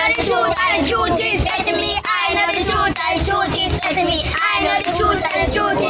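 A small group of young children singing together in unison.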